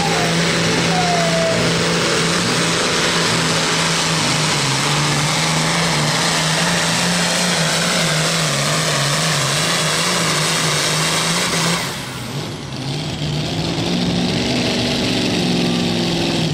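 Modified pro field-class pulling tractor's engine running at full throttle during a pull, loud and steady with a slightly wavering pitch under a heavy hiss. About twelve seconds in the throttle is cut sharply and the engine falls to a quieter run.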